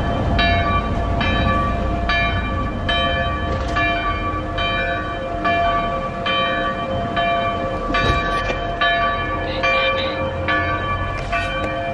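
Church bells pealing: several bells of different pitch striking in turn in a steady, even run, about two to three strikes a second, each note ringing on.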